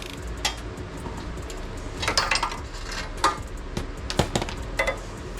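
Scattered metal clinks and knocks of hand tools working on the front suspension's sway bar links, with a quick cluster about two seconds in and single sharp strikes after three and four seconds.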